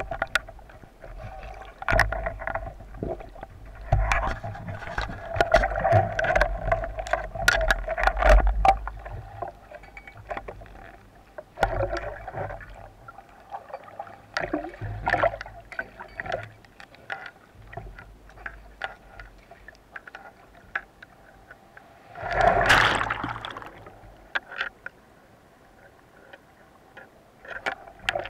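Wave surge in very shallow water heard underwater: repeated low rumbling swells of turbulence with many sharp crackling clicks, the biggest surge about 22 seconds in, over a steady faint hum.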